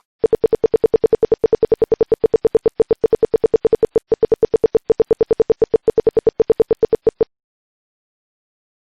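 Security alarm beeping: a rapid, even train of identical mid-pitched beeps, about seven a second, that cuts off suddenly about seven seconds in.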